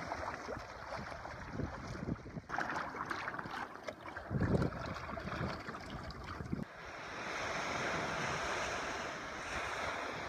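Gusty wind buffeting the microphone over choppy lake water on a small sailboat. About two-thirds of the way through, this changes abruptly to a steady wash of waves breaking on a sandy beach.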